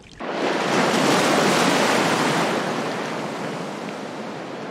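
Ocean waves surging: a rush of surf that starts suddenly, holds strong for about two seconds, then slowly dies away.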